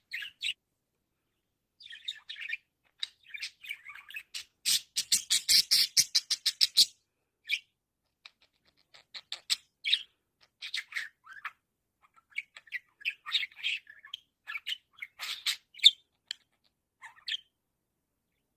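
Budgerigar chirping in short bursts. About five seconds in comes a loud, fast run of rapid chirps, followed by scattered single chirps and short chatters.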